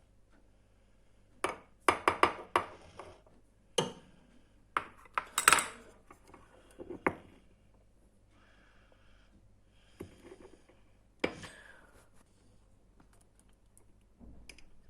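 Kitchen utensils and dishes clinking and clattering in irregular clusters of sharp knocks, with longer gaps between strokes in the second half.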